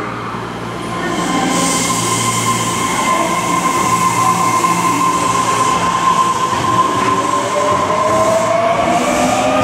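Osaka Metro 400 series electric train pulling away from a platform in an underground station. Its Hitachi hybrid SiC VVVF inverter and traction motors give a steady high whine, and a lower tone joins in near the end, rising in pitch as the train picks up speed.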